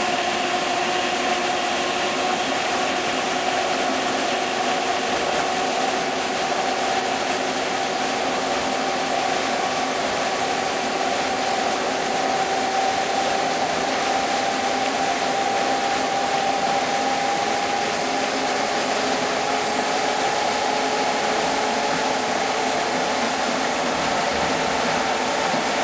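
Twin Pelton-wheel hydro turbine generators spinning up, a steady humming whine that rises slowly in pitch as the isolation valve is eased open, over a constant hiss of water.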